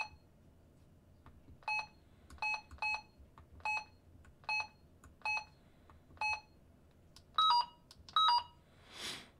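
Key-press beeps from a Retevis RT95 dual-band mobile radio as its front-panel buttons step through the menus to change the power setting. There are about eight short single beeps at uneven intervals, then two louder two-note beeps, each stepping down in pitch.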